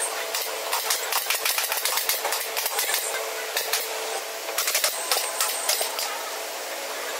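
Pneumatic upholstery staple gun firing runs of rapid sharp shots, driving staples through velvet fabric into the wooden sofa frame, with short pauses between runs.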